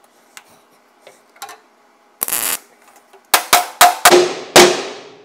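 A short burst of noise about two seconds in, a MIG tack weld on the steel chassis rail, then five sharp ringing hammer blows on the steel patch panel in the second half.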